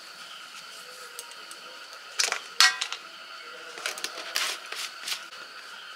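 Sharp light clicks and clinks of a utensil against a steel mixing bowl as salt is added to flour: a loud cluster a little over two seconds in, then several more taps between about four and five seconds.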